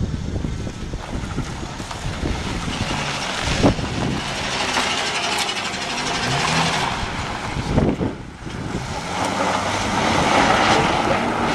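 Ford Mustang convertible's engine revving up and down while its tyres spin on a dirt lot doing donuts, with dirt and gravel spraying and wind on the microphone. Two sharp thumps stand out, about four and eight seconds in.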